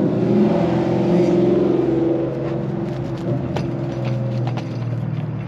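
A motor vehicle's engine running, a steady low hum that drifts slightly in pitch, with a few faint clicks in the second half.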